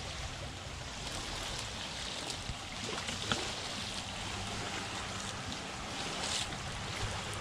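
Small waves lapping at a sandy shoreline: a steady watery wash, with a few brief splashes about three and six seconds in.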